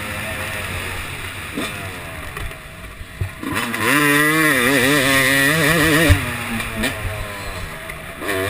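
Yamaha YZ250 two-stroke motocross engine, quieter for the first few seconds, then revving up and down in quick surges of throttle from about halfway through, easing off again near the end.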